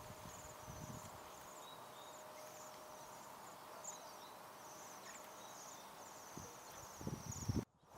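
A flock of Bohemian waxwings giving their high, thin trilled calls, short trills repeating over and over. A few low thumps near the end.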